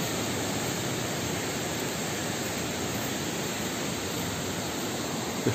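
Steady rush of a stream running over small rapids, an even hiss-like noise with no change in level.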